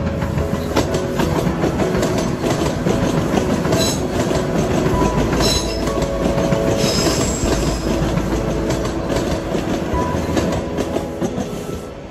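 A TTC Toronto Rocket subway train passing close by underneath, its wheels clattering over the rail joints and switches, with a few brief high squeals from the wheels. The rumble is loudest in the middle as the cars go by and fades near the end.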